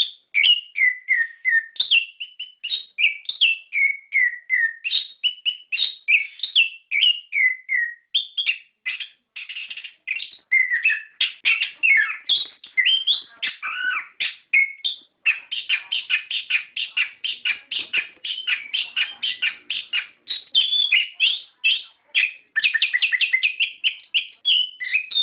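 Orange-headed thrush singing a long, varied song of quick whistled and chirping phrases. About halfway through, the song turns into a dense, rapid run of notes, the continuous rolling song that keepers call 'ngerol'.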